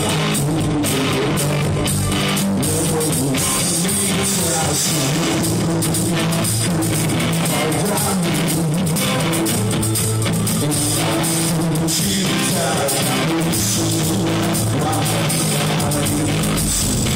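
Rock band playing: electric guitar and drum kit, loud and continuous.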